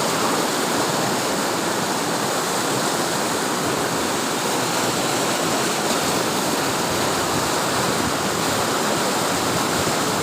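Steady rushing of flowing river water, an even unbroken wash of noise.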